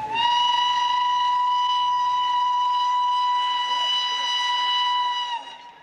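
Steam locomotive whistle blowing one long, steady blast of about five seconds, its pitch rising slightly as it starts and sagging as it dies away near the end.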